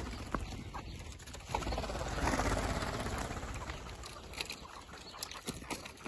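Chukar partridges clucking, loudest in the middle, with scattered sharp clicks.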